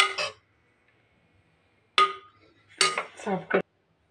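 A metal ladle clinking against the side of an aluminium pressure cooker full of curry: a knock at the start and a sharper clink about two seconds in that rings briefly.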